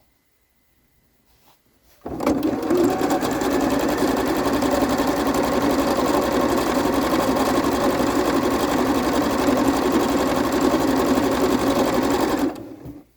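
Electric sewing machine running a straight seam at a steady fast speed, starting about two seconds in and stopping abruptly about a second before the end.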